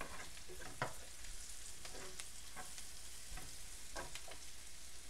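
Sliced onions, green chillies and curry leaves frying in oil in a pan with a faint, steady sizzle, as ground spices go in. A spoon scrapes and taps against the pan every so often while it is stirred.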